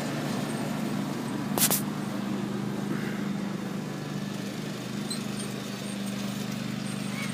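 Craftsman GT5000 riding mower's engine running at a steady hum as it is driven, with one sharp click about a second and a half in.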